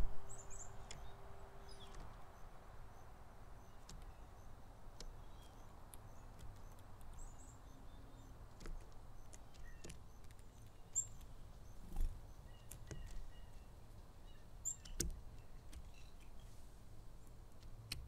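Scattered faint chirps and short calls of small songbirds over a steady outdoor background hiss, with three soft low thumps in the second half.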